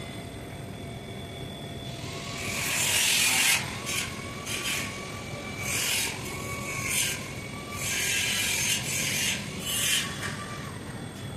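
A series of about eight irregular hand scraping strokes, the first and longest about two seconds in, over a steady low hum.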